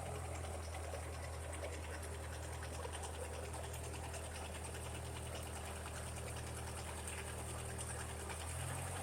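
Ferguson TO35 tractor engine running steadily. Near the end the engine note rises slightly and gets a little louder.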